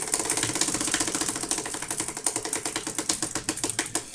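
Prize wheel spinning, its pointer ticking rapidly against the pegs, the ticks spacing out as the wheel slows toward a stop.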